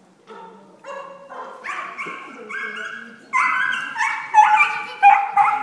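A dog barking repeatedly in short, high-pitched barks, about two a second, growing louder a little past halfway.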